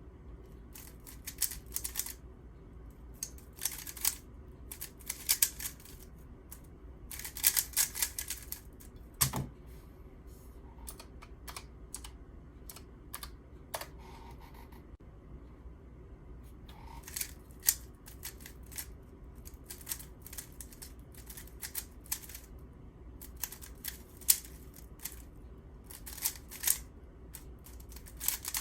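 A plastic speedcube being turned quickly: bursts of rapid clicking and clacking with short pauses between them, and a single duller knock about nine seconds in.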